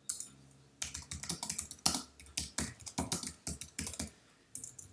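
Typing on a computer keyboard: a quick run of key clicks starting about a second in, with a brief pause near the end.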